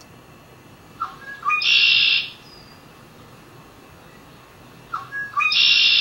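Recorded red-winged blackbird song, heard twice: each song is a few short rising notes followed by a loud buzzy trill, with the second song about four seconds after the first.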